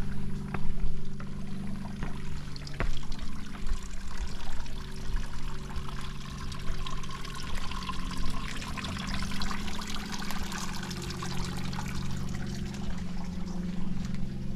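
Water trickling and splashing down a small rock waterfall into a pond, growing louder midway through. A few footsteps click on stone paving in the first seconds, over a steady low hum.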